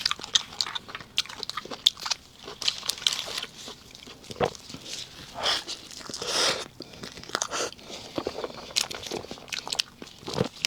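Close-miked eating: biting into and chewing soft layered cake, with many small sharp mouth clicks and a few longer chewing sounds in the middle.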